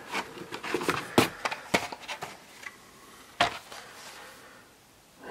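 Carded Hot Wheels blister packs being pulled from a cardboard shipping case and handled: a series of sharp plastic and cardboard clicks and knocks, the loudest about a second in, with the last one at about three and a half seconds.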